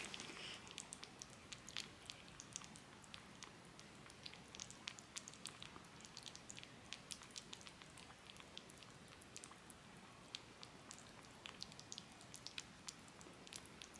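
Kitten licking and eating soft weaning-food paste: faint, quick wet clicks of tongue and mouth, several a second.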